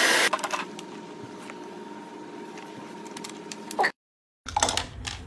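Karcher WD3 wet-and-dry vacuum's loud motor noise cutting off abruptly about a third of a second in. Quiet clicks and knocks of the machine being handled follow over a faint steady hum, broken by a brief dead silence near the end.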